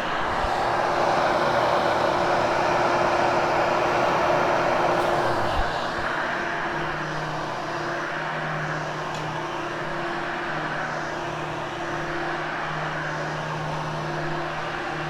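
Vacuum cleaner running over dry carpet in a steady rushing whir with a constant motor hum. It is louder for the first five seconds or so, then settles a little quieter.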